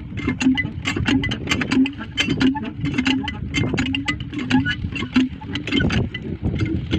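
Engine-driven well pump running with a rhythmic clatter of several knocks a second and a squeak about twice a second, while it is being primed with water and is not yet drawing.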